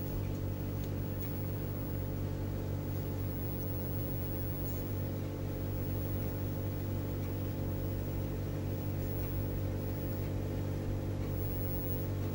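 Ginger cat purring steadily while held and stroked.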